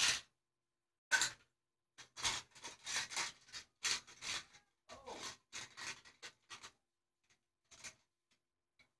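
Toy cars knocking and clattering together: two single knocks, then a dense, irregular run of clacks and rattles for about five seconds, tailing off into a few faint taps.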